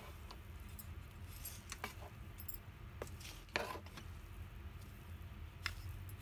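A wooden spatula scraping and knocking against the pan while cooked rice is fluffed: a few short, scattered scrapes and taps, the loudest about three and a half seconds in.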